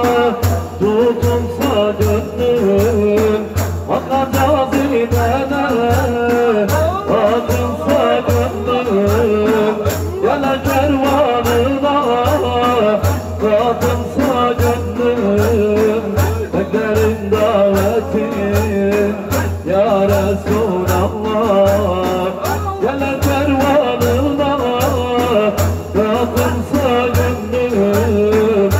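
Sufi ilahi music with zikir accompaniment, between sung verses: a steady rhythmic beat about twice a second under a wavering melodic line, with jingling percussion.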